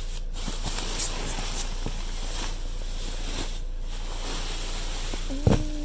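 Rustling, hissing handling noise with a few faint clicks. Near the end comes one sharp knock that rings briefly.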